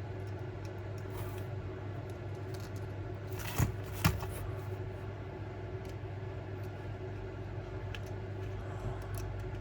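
Small parts and a tool handled on a workbench: two light knocks about three and a half and four seconds in and a few faint ticks, over a steady low hum.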